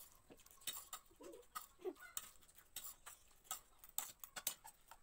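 Faint, irregular clicks and taps of spoons and forks against plates as noodles are eaten quickly, with two brief faint mouth sounds in the first two seconds.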